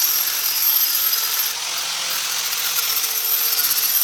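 Angle grinder grinding steel angle iron clean for welding: a steady high whine over a harsh hiss, easing off slightly for a moment about a second and a half in.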